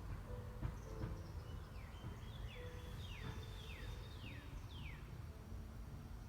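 A bird singing a run of about six quick downward-sliding whistled notes over a steady low outdoor rumble.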